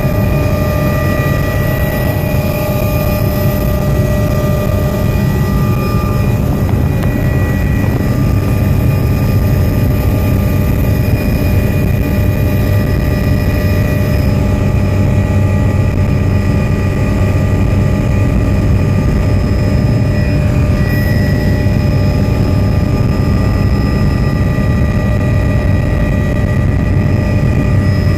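Helicopter running in flight, heard from inside the cabin: a loud, steady drone with a steady high whine over it.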